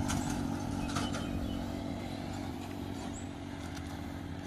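A motorcycle engine running at a steady pitch, slowly fading.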